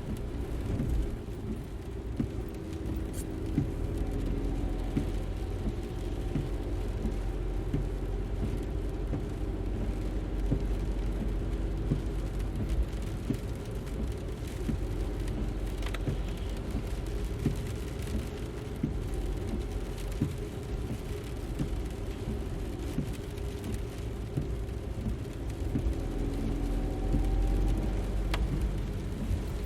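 A car running, a steady low rumble of engine and road noise, with a faint engine tone that rises a few times.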